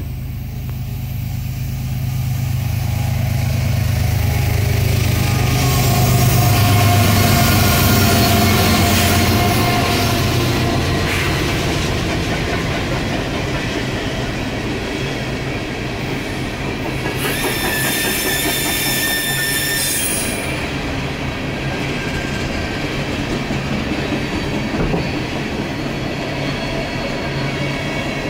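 Norfolk Southern freight train passing: diesel locomotives drone first, loudest several seconds in, then empty coal hopper cars roll by with steady rail noise. High-pitched wheel squeal rings out for a few seconds past the middle.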